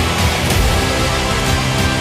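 Loud, driving background music with a steady beat.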